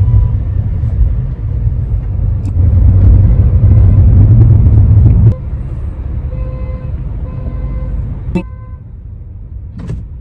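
Car horns honking at the car from surrounding traffic: two short honks a little past the middle and a brief toot about eight seconds in. Before them a loud low rumble that drops off suddenly about five seconds in.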